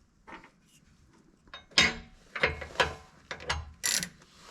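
A 3/8-inch ratchet being set on an O2 sensor socket and worked back and forth, its pawl giving a handful of separate metallic clicks from about two seconds in.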